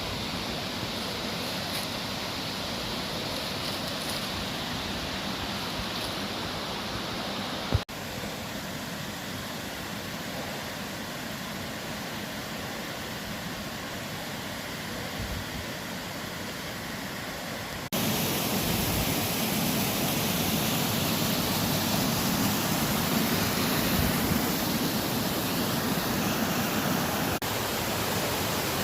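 Steady rush of water from a creek waterfall. It changes abruptly twice, with a click about eight seconds in and a jump to louder, fuller rushing about eighteen seconds in.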